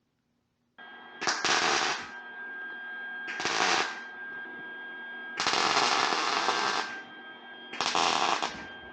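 MIG welder tacking round steel patches into sheet metal: four short welding bursts, the longest about a second and a half, with a steady high tone running between them, starting after a moment of silence.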